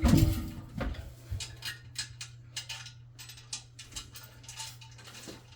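Small hard parts and tools clicking and clinking as a toilet is worked on, after a louder knock right at the start, over a steady low hum.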